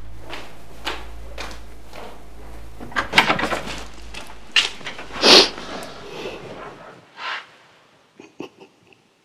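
Footsteps on a hard floor, about two a second, then a few louder knocks and one loud thump about five seconds in. A low hum stops near the end, leaving a few faint clicks.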